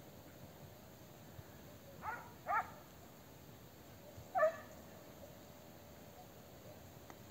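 A hunting dog yelping off in the brush: two quick high yelps about two seconds in, then a third about two seconds later.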